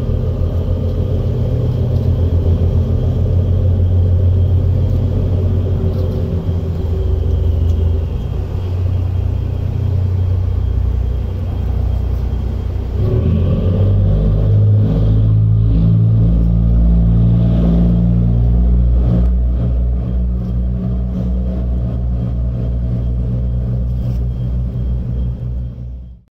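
Harbour ferry's diesel engines running with a deep, steady rumble. About thirteen seconds in the engine note shifts higher and stronger, then holds.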